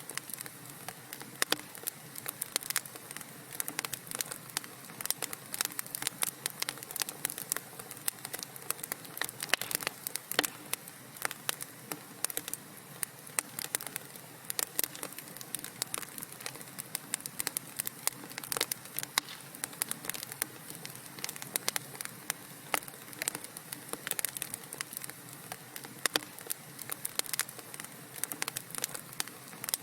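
Wood fire crackling in a fireplace: many quick, irregular pops and snaps over a steady soft hiss.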